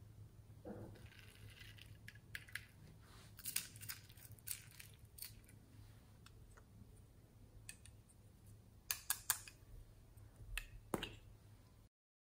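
Small plastic toy containers of foam beads handled and emptied into a bowl of slime: scattered sharp clicks and light rattles, with a cluster of louder clicks about nine seconds in and another near eleven. The sound cuts out just before the end.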